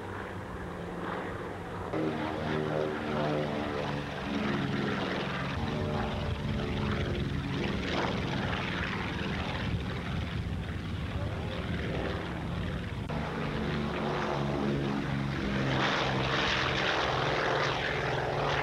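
The radial piston engines of a twin-tailed World War II bomber droning as it flies past. Its propeller drone changes pitch a couple of times and grows louder toward the end.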